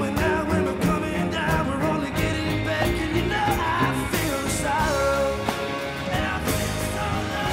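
Live rock band performance: a male singer's voice over strummed acoustic guitar, drums and backing band.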